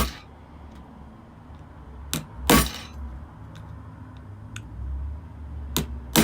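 Sharp cracks and knocks as a scalpel blade is forced into the glued seam of an Apple 87W USB-C power adapter's plastic case: one at the start, two close together about two seconds in, and two more near the end, with faint ticks between.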